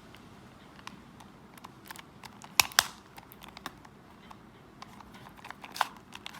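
Plastic Rubik's Cube being handled and twisted: scattered light clicks, with two louder clacks close together about two and a half seconds in and another near the end.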